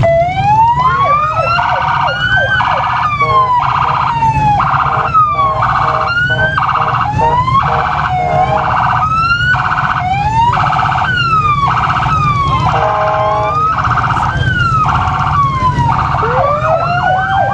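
Police car electronic siren sounding loudly. It starts with a rising wail, then cycles about once a second between a held tone and a falling sweep, and switches to a fast yelp near the end.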